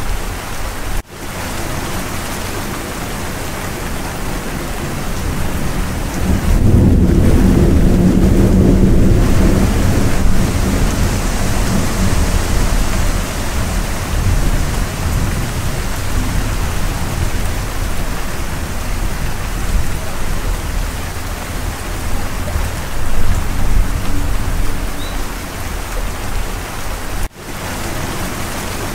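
Steady heavy rain with thunder: a long, low rumble of thunder swells about six seconds in and fades over several seconds. The sound drops out briefly twice, near the start and near the end.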